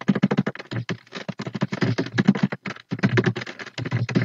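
Fast typing on a computer keyboard: a quick run of keystrokes with two brief pauses.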